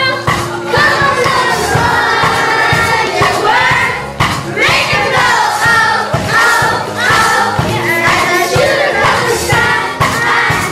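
A group of children singing a show tune together over a live jazz trio, with a steady drum beat under the voices.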